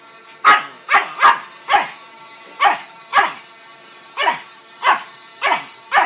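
A chihuahua barking about ten sharp barks in quick bursts, each dropping slightly in pitch, at the steady drone of a vuvuzela played from a phone app.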